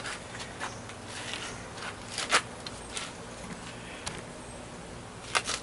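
Scattered light clicks and knocks from a tool and workpiece being handled and set in place, the loudest about two and a half seconds in, over a faint steady hum.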